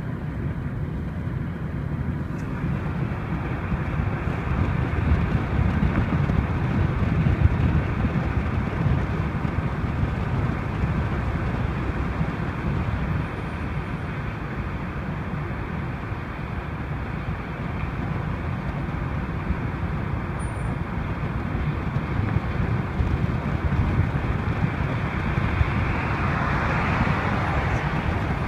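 Steady road noise heard from inside a moving vehicle: a low rumble of engine and tyres, with a hiss that swells near the end as other traffic passes close by.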